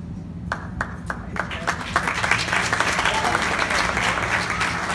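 Audience clapping: a few separate claps at first, swelling into steady applause about two seconds in, with voices mixed in.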